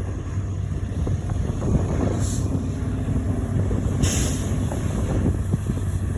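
Massey Ferguson 2620 tractor's diesel engine running steadily under load while pulling a deep plough, with wind on the microphone and two brief hissing gusts.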